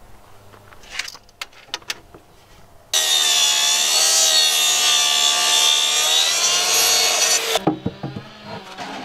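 Makita plunge-cut track saw running along its guide rail and cutting through plywood, a loud steady whine that starts suddenly about three seconds in and cuts off about four and a half seconds later. Before it, a few light clicks and knocks of handling.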